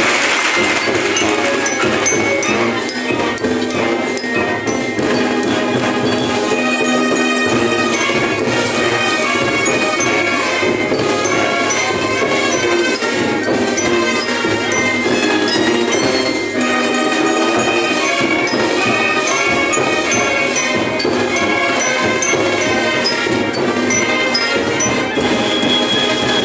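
Guatemalan procession brass band playing a son, brass melody over a steady percussion beat.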